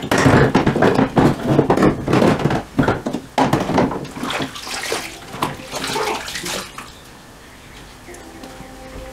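Dishes washed by hand in a sink of soapy water: splashing and sloshing with sharp knocks of crockery, dying down about seven seconds in.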